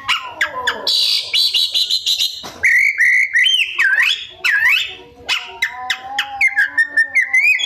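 Oriental magpie-robin (kacer) singing a varied song: a fast chattering run of high notes, then looping whistled notes that swoop up and down, with sharp clicks in between.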